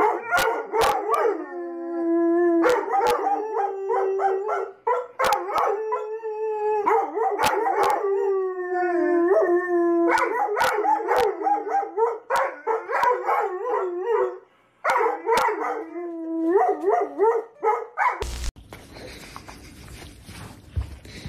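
A dog howling over and over in long, wavering howls, some held for a second or two. It stops abruptly near the end, leaving low room noise.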